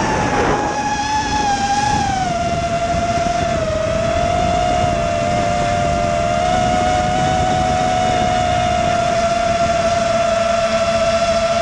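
Brushless motors of a small FPV racing drone whining steadily as it flies, picked up by its onboard camera. The pitch drops over the first couple of seconds as the throttle eases, then holds nearly level, with a low rushing noise beneath it.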